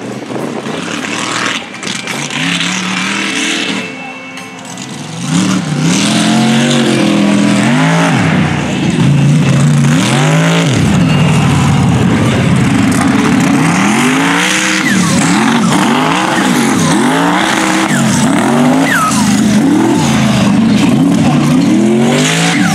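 Mega truck engines revving hard on a dirt race course, the pitch sweeping up and down again and again as the throttle is worked. Quieter at first, loud from about five seconds in.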